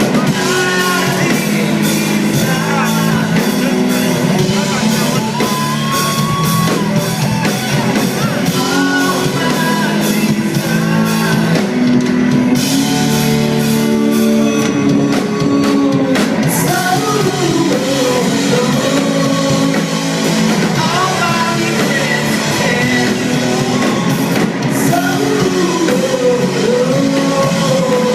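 Rock band playing a song: a singer's voice over electric guitar, bass and a drum kit keeping a steady beat.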